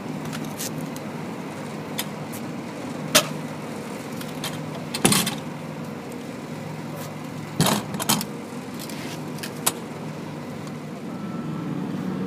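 A steady low motor hum with sharp metallic clanks and rattles scattered through it, the loudest about three and five seconds in and a pair near eight seconds, from a loaded cart of rubber surfacing mix being wheeled over concrete.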